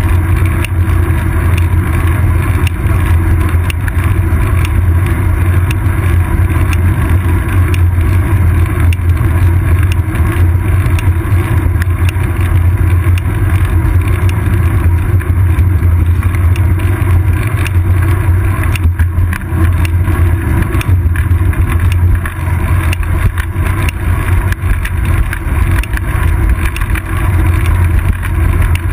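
Steady, loud low rumble of wind and road vibration on a GoPro Hero 2 camera mounted on a moving bicycle's seat post.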